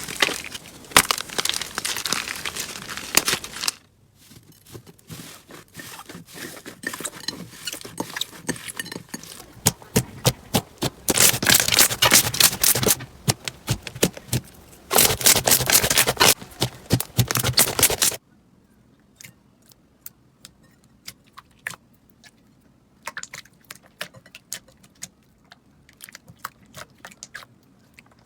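Slime being squeezed, stretched and poked by hand, giving dense crackling and popping clicks. The sound changes abruptly twice as the clips change, and after about 18 seconds it drops to sparse, faint clicks.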